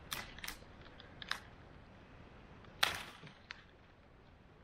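A few sharp knocks and cracks, the loudest about three seconds in.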